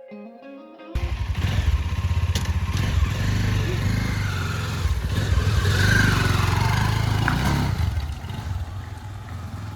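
Bajaj Dominar 400's single-cylinder engine running as the motorcycle rides off. It starts suddenly about a second in, is loudest about halfway through, and fades near the end.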